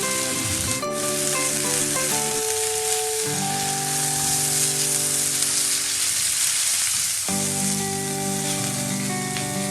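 Steaks searing in oil in a very hot pan: a steady sizzle, with a single click about a second in. Soft background music of held notes plays under it.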